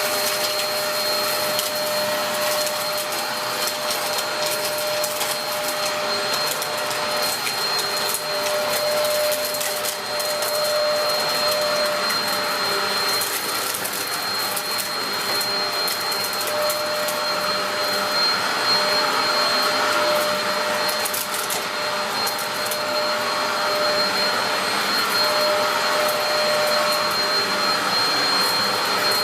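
Dyson DC03 bagless upright vacuum cleaner running steadily while picking up a spread of flour and other mess: a continuous rush of air with a steady high whine and frequent small crackles.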